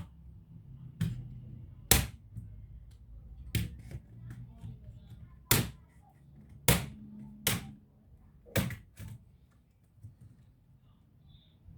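Sharp clicks and knocks of hard plastic and small metal parts being handled and set down while a laptop is taken apart, about seven at uneven intervals.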